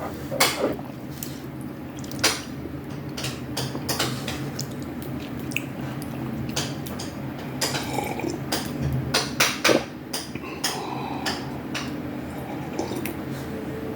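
Close-miked mukbang eating sounds: wet chewing and mouth sounds, with scattered sharp clicks and taps, some from utensils on dishes.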